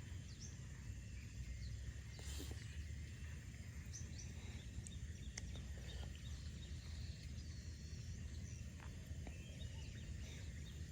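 Quiet outdoor ambience: a steady low rumble under scattered faint short chirps from birds or insects, with a few small ticks.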